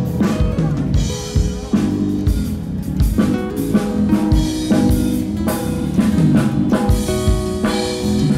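Band playing a song, with a drum kit keeping a steady beat under guitar.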